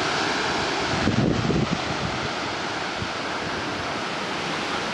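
Strong wind from an approaching hurricane: a steady rushing noise, with a louder low buffeting on the microphone about a second in.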